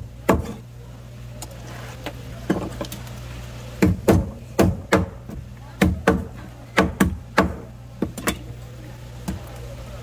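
Heavy knife chopping through fish on a cutting board: irregular sharp strikes, often two in quick succession, over a steady low hum.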